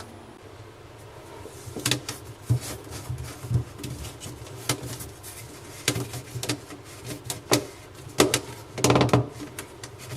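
Irregular knocks and clicks of hands-on handling work, with a quick rattling run of clicks about nine seconds in.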